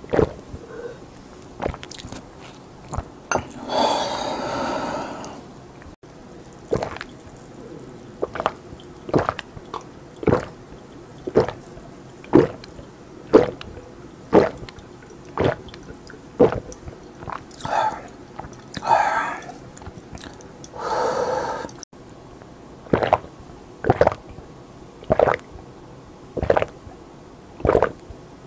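A person gulping soft drinks down from a glass in one go, steady swallows about once a second, broken by a few longer noisy breaths between drinks.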